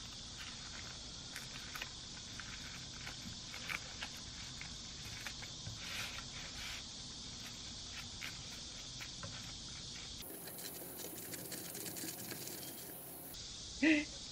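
Bamboo gimbap rolling mat and dried seaweed handled while a gimbap is rolled and pressed tight: faint rustling and small clicks over a steady hiss. Near the end comes a short, louder pitched sound.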